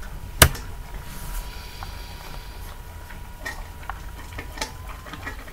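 A single sharp computer keyboard key press, the Enter key launching Emacs, about half a second in, followed by steady low room hum with a few faint ticks.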